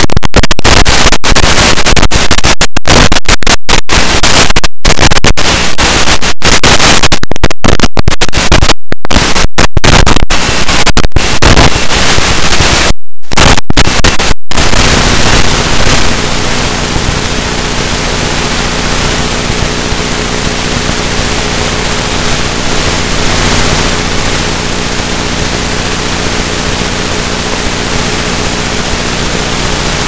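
Loud static hiss from an analog FPV video receiver's audio channel. In the first half it is broken by many brief drop-outs. About halfway through it settles into a steadier, slightly quieter hiss with a faint low hum underneath.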